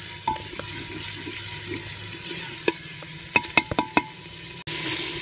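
Onion and tomato masala sizzling in hot oil as it is fried down for the tomatoes to mash, while a spoon stirs it and knocks sharply against the pot, several times in quick succession about three to four seconds in.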